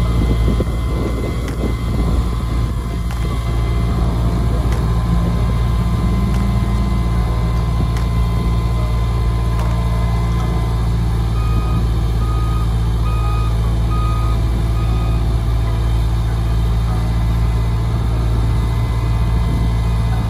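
Liebherr LTM 1220/1 all-terrain crane's diesel engine running steadily under hydraulic load as the fully extended boom is worked. About halfway through, a warning beeper sounds a string of about six short beeps.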